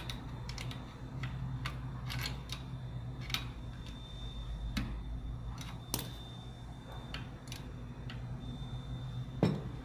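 Scattered light clicks and taps of a junior trampoline's metal frame parts and clips being handled and fitted, with a louder knock near the end, over a steady low hum.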